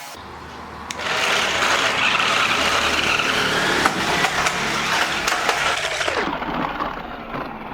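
Toy stunt RC car driving on hard ground: a steady, rough rolling noise of its plastic wheels starts about a second in, followed by a few sharp clacks near the end.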